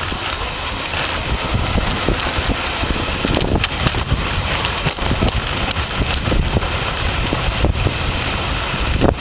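A moving dog sled: its runners hiss steadily over snow while wind buffets the microphone, with small ticks and knocks from the sled.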